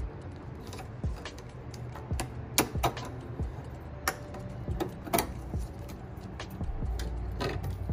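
Irregular sharp clicks and taps of wire connectors and small parts being handled at a freezer compressor's electrical terminals, over a low steady hum. A low rumble swells near the end.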